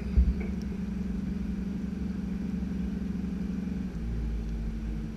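Hyundai 380 long-reach excavator's diesel engine running steadily; about four seconds in its note changes, the hum dropping away as a deeper rumble grows.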